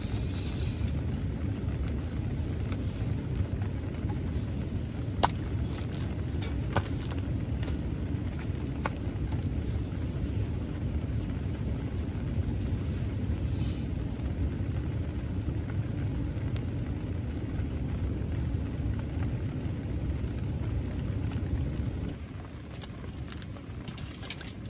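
Steady low rumbling noise of rain drumming on a camp tarp, with scattered sharp ticks. The rumble drops away sharply about 22 seconds in.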